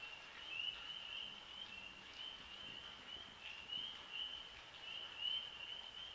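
Faint, steady high-pitched chirping from an animal, short phrases repeating two or three times a second without a break.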